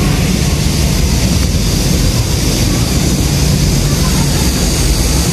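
Steady outdoor noise: an even low rumble with a hiss over it, unchanging throughout.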